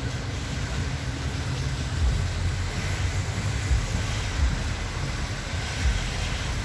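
Low, uneven rumble of a Metra commuter train, with a steady hiss of rain over it.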